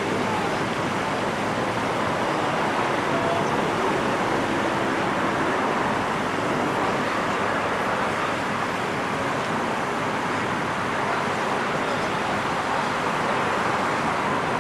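Steady rushing noise of road traffic, even throughout.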